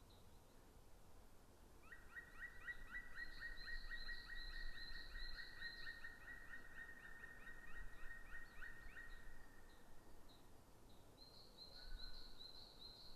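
Black woodpecker giving its long ringing call series, a fast run of even, repeated notes at about four a second, lasting about seven seconds and starting about two seconds in. A thinner, higher series of chirps from a smaller bird runs alongside and returns near the end.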